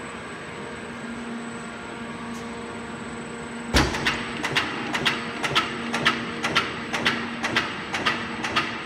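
SCHAAL high-speed stamping line humming steadily with a couple of steady tones, then started from its control panel: about four seconds in a loud clank, followed by regular sharp knocks about two a second as the line cycles.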